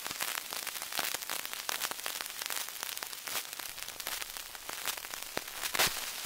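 Surface noise of a Brunswick 78 rpm shellac disc with no music: a steady hiss with dense crackles and pops as the stylus rides the blank groove at the record's end. One louder pop comes near the end, then the sound cuts off suddenly.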